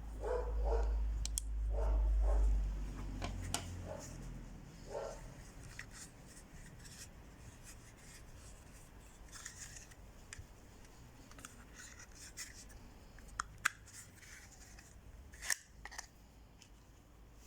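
Hands working a kydex multi-tool sheath and its belt fastening: scattered sharp plastic clicks and short scraping rubs, with a low rumble in the first few seconds and the loudest clicks near the end.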